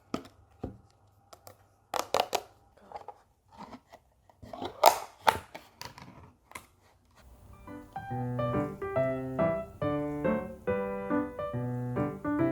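Product packaging being handled and opened: crinkling, tearing-like rustles and sharp clicks, loudest around two and five seconds in. About seven seconds in, light piano music begins.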